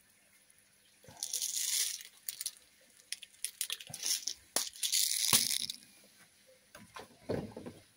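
4.5 mm BBs rattling in a bottle as it is shaken, in two spells, the first about a second in and a longer one from about four seconds, with a few small clicks between.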